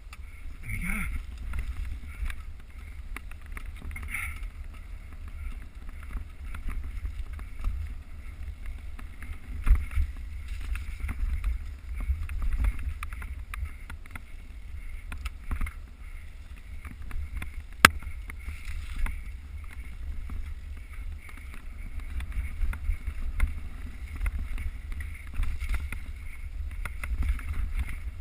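Wind buffeting the GoPro HD camera's microphone on a moving mountain bike, a steady low rumble, with scattered knocks and clicks from the bike and one sharp click about eighteen seconds in.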